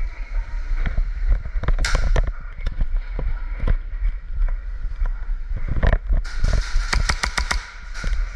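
Airsoft guns firing: scattered sharp single shots, then a rapid string of shots near the end, over a constant low rumble.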